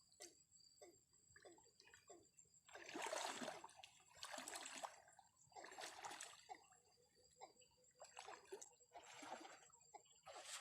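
Shallow flood water splashing and sloshing in several irregular bursts, the loudest about three seconds in, with small drips and trickles between them.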